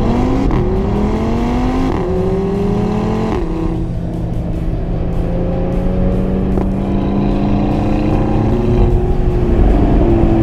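Audi TT RS's turbocharged 2.5-litre five-cylinder engine at full throttle, pitch climbing through the gears with quick upshifts about two and three and a half seconds in. It then pulls at nearly steady revs, with another drop in pitch near the end.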